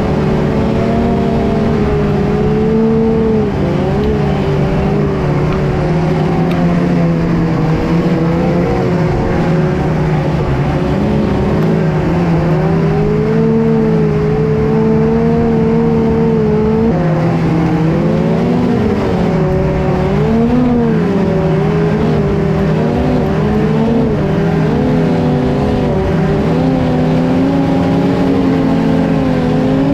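Snowmobile engine running hard under load while towing a dead sled uphill, its revs wavering up and down, steadier in the first half and rising and dipping more often later.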